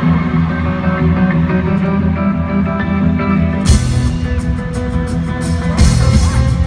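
Live rock band heard from the arena floor: electric guitar playing held, ringing notes, then about three and a half seconds in the drums and cymbals come in with the full band.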